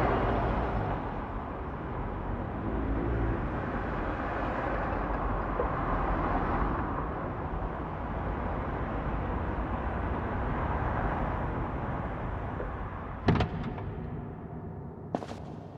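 Car engine and road noise heard from a moving car in city traffic, a steady rumble that slowly grows fainter. A single sharp knock comes about thirteen seconds in.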